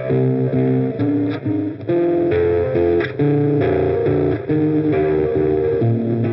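Electric guitar played through the Audio Disruption Devices Transformations one-knob fuzz pedal with its analog octave engaged, into a delay. Distorted notes and chords change about every half second.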